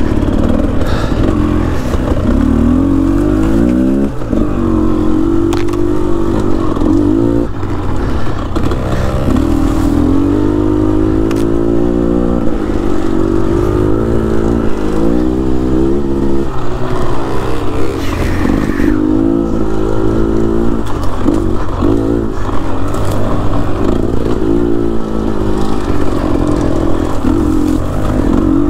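Dirt bike engine revving up and down as the throttle is worked over and over, with a few sharp knocks along the way.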